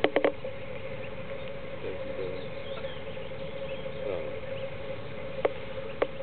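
Greylag goslings giving soft, high peeping calls while the family grazes, over a steady hum, with a quick run of three sharp clicks at the start and two single clicks near the end.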